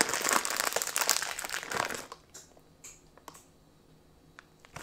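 Plastic bag of shredded mozzarella crinkling as the cheese is grabbed and scattered over the pizza, loudest over the first two seconds, then a few light ticks, with another short rustle at the end.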